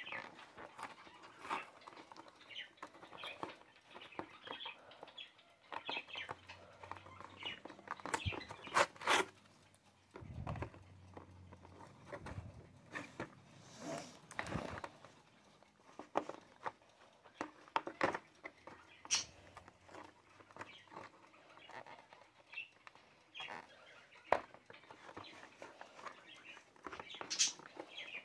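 Fingers pressing and a fingernail scratching at the perforated cardboard backing of a battery blister pack, with irregular crackles, scrapes and taps of the card and plastic as it is worked open.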